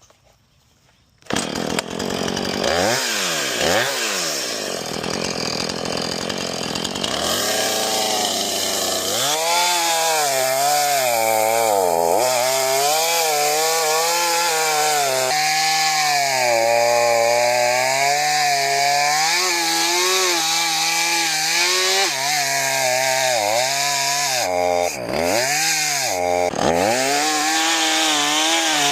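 Chainsaw starting up about a second in and revving up and down, then cutting into a log, its engine pitch repeatedly sagging and recovering as the chain bites into the wood.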